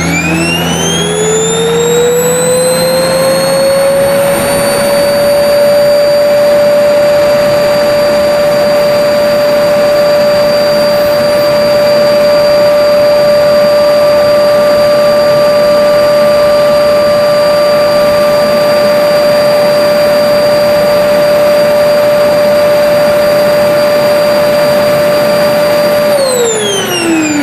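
Vacuum cleaner switched on: its motor whine rises over the first few seconds, then runs steadily at full speed with a loud rush of air. About a second before the end it is switched off and the whine falls as the motor winds down.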